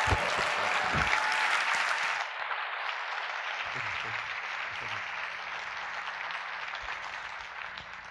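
Audience applauding, loudest for the first couple of seconds, then softer and dying away near the end. A couple of low thumps in the first second.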